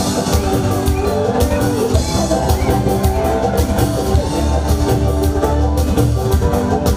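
Live Assamese Bihu music from a stage band: dhol and drum kit beating a steady rhythm under keyboard, with a woman singing into a microphone.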